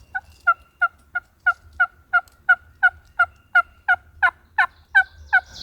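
Turkey yelping: a long, evenly paced run of about sixteen yelps, about three a second.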